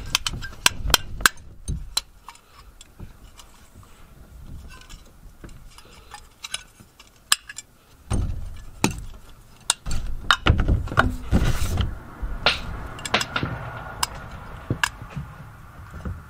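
Irregular metallic clicks and taps of a screw and hand-held Phillips screwdriver being worked into a metal ceiling fan box bracket, with low bumps and rustling of handling between the clicks.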